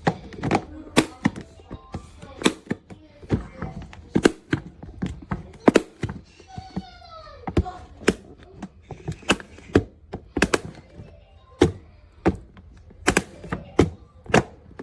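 Rigid plastic food storage containers and lids being handled: repeated sharp knocks, taps and clicks as containers are set down, moved and their lids handled, with a short falling squeak about halfway through.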